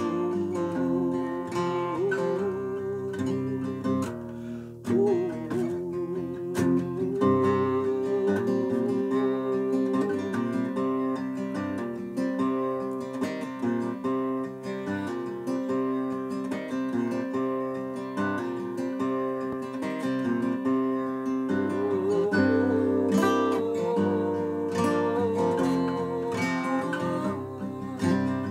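Acoustic guitar strummed, a steady run of chords that change every second or two.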